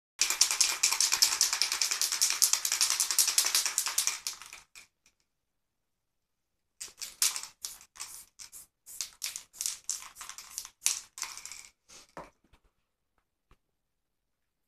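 Aerosol spray-paint can hissing: one long spray of about four and a half seconds, then, after a short pause, a quick run of short spurts.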